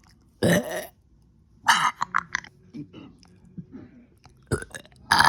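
A person burping several times: a short burp about half a second in, a longer, broken burp around two seconds in, and another starting just before the end.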